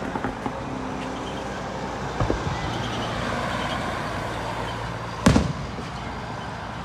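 Fireworks bursting: a small pop about two seconds in and a louder bang about five seconds in. Between them runs the steady noise of cars passing on the road.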